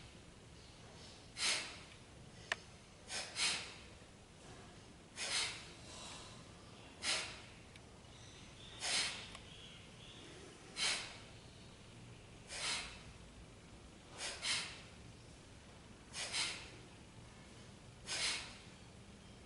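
Sharp, forceful nasal exhalations of Kapalbhati breathing, about one every two seconds and sometimes two in quick succession, with quiet passive inhalations between. There is a single sharp click about two and a half seconds in.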